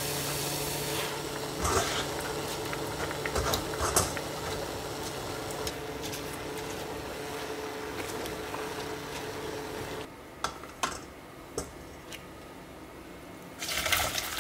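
Perilla shoots being blanched in a stainless pot on an induction cooktop: a steady hum from the cooktop under light clinks and splashes as the greens go into the water and are stirred with chopsticks. The hum cuts off about ten seconds in, and near the end there is a brief rush as the pot is tipped into a metal strainer.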